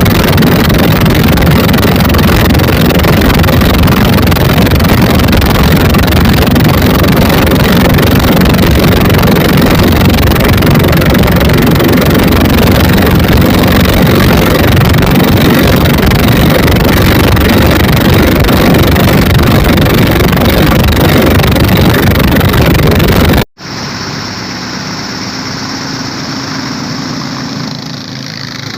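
Twin 24 HP dompeng single-cylinder diesel engines driving a wooden boat at full speed, almost buried under heavy wind noise on the microphone. Near the end the sound cuts abruptly to a much quieter, steady engine note.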